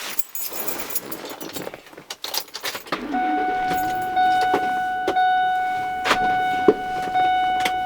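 Keys jangling for about three seconds, then a steady high-pitched electronic tone with a few sharp clicks over it.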